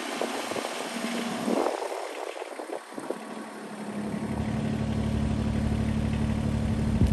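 Kubota backhoe loader's engine running at a steady pitch, coming in about four seconds in and growing a little louder; before that, scattered clattery noise.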